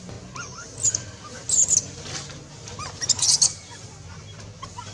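Baby long-tailed macaque crying at its mother in shrill, high-pitched squeals. There are three loud bursts, about a second in, at a second and a half and at about three seconds, with softer short chirps between them. This is the angry crying of a baby being weaned.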